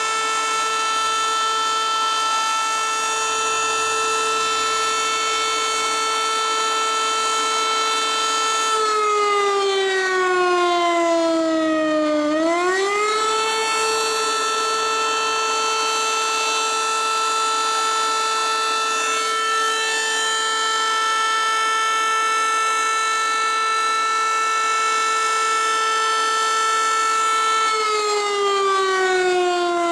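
Fire station alarm siren on its mast, sounding the call-out alarm for the volunteer firefighters. It holds one steady wailing pitch, sinks in pitch and swings back up about a third of the way through, then starts sinking again near the end.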